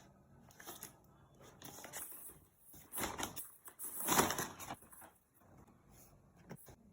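Packaging being handled and opened: irregular rustling and crinkling, loudest in two swells about three and four seconds in.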